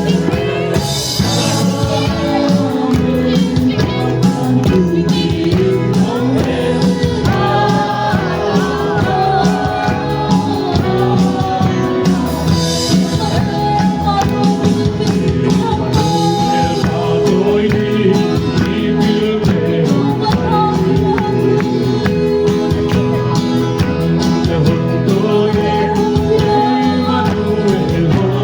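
Loud music with a singing voice over a full instrumental backing and a steady beat.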